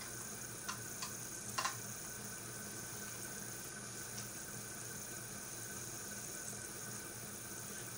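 A few light clicks in the first two seconds as the power cord is hooked up onto the Kirby vacuum's cord hooks, over a steady low hiss of room noise. The vacuum motor is not running.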